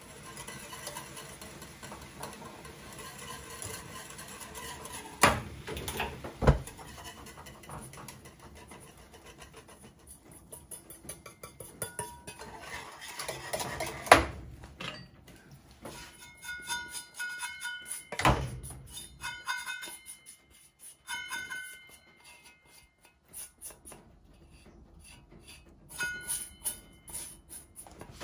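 Wire whisk rattling and clinking against a small aluminium saucepan as sugar and Ina agar gelling agent are whisked into the liquid to dissolve, with a few sharp knocks and short ringing taps on the pan. A gas burner hisses under it for the first ten seconds or so, then stops.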